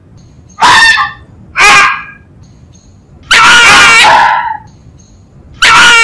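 A fox calling in loud, high-pitched cries: two short calls, a longer drawn-out one in the middle, and another starting near the end.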